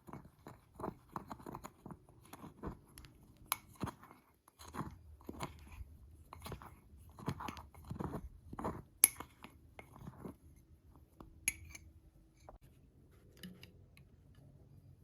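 A spoon scraping and tapping in a mug of dry cake mix in irregular short strokes, about two or three a second, dying away near the end.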